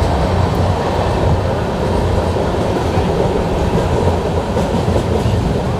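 Humsafar Special passenger train running along the track, heard from on board: a steady rumble of wheels on rail with clickety-clack from the rail joints.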